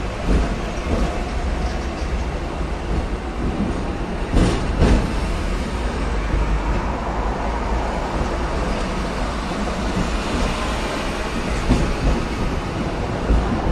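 Hong Kong double-decker electric tram running along its tracks, heard from on board: a steady rumble with two sharp knocks about four and a half seconds in and a few smaller ones near the end.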